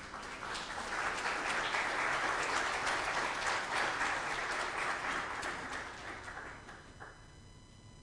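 Congregation applauding: many hands clapping, swelling within the first second, holding, then dying away about seven seconds in.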